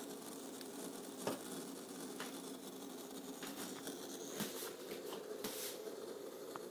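MCP655 (Laing D5) water-cooling pump running with a steady hum, broken by irregular clicks and crackling as it works through air while the loop is being bled.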